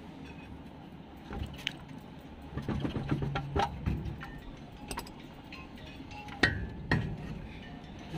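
Metal-on-metal clinks and knocks of a spanner working the gearbox-to-clutch-housing bolts on a truck's transmission, busiest midway, with two sharp clinks about half a second apart near the end.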